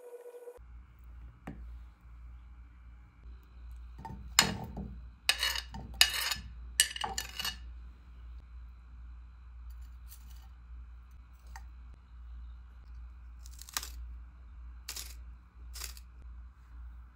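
A knife and ceramic plate clinking and clattering as cut peach pieces are pushed off the plate into a nonstick frying pan, in a cluster of sharp clicks about four to seven seconds in. Three lighter taps follow near the end, over a steady low hum.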